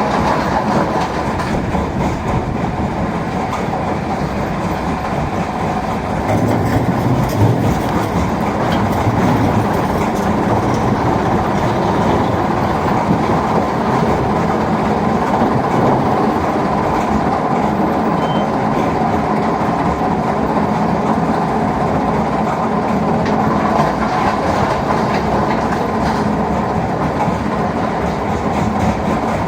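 Mobile stone crusher and excavator running steadily, a continuous heavy rumble and rattle of machinery with rock being crushed.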